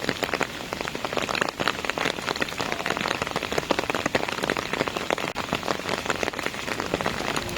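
Heavy rain falling on hard surfaces: a dense, irregular clatter of individual drops hitting.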